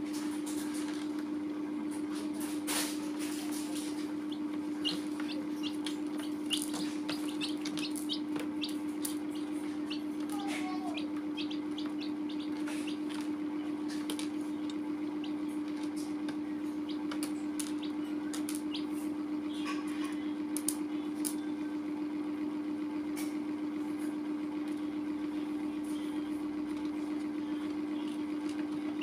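Domestic chicks in a plastic basin: many light ticks of beaks pecking at the plastic floor and a few short peeps, over a steady low hum.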